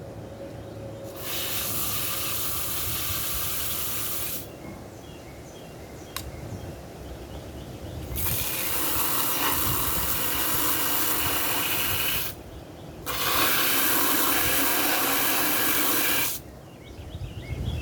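Water spraying from a garden hose nozzle onto a plastic tub to wash off droppings and debris, in three bursts of a few seconds each that start and stop sharply.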